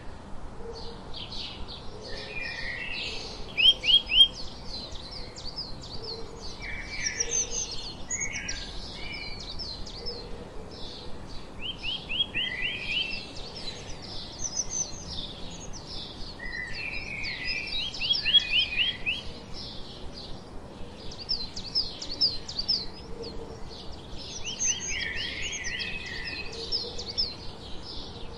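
Sparrows chirping busily and continuously, with short runs of quick repeated notes every several seconds; loudest about four seconds in.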